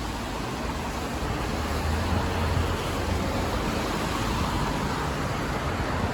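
Road traffic passing on a wet street: a steady hiss of tyres, with a low rumble that swells about two seconds in.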